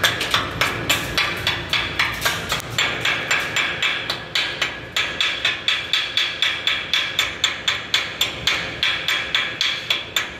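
Stick-welding arc of a 5/32 6011 electrode running a root pass overhead on galvanized steel: a loud, steady crackle that surges in sharp pulses about three times a second as the rod burns through the zinc coating.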